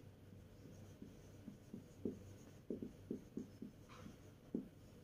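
Felt-tip marker writing on a whiteboard: a run of short, faint strokes, coming thickest from about two seconds in.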